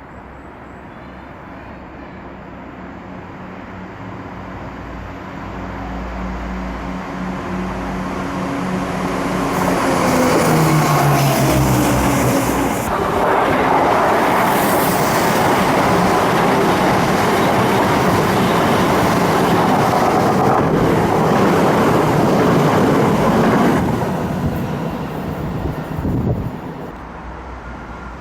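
Passenger train approaching and passing close by. A hum builds and drops in pitch as the train goes by, then comes about ten seconds of loud wheel-on-rail rolling noise that ends abruptly, with a brief knock as it fades away.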